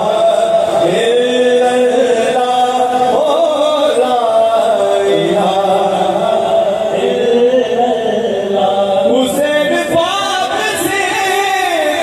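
Qawwali party singing: male voices together holding long notes that slide from pitch to pitch.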